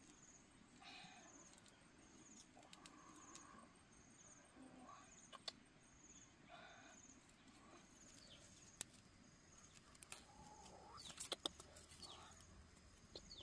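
Faint outdoor ambience: a short high-pitched call repeats about once a second, with a few sharp clicks near the end.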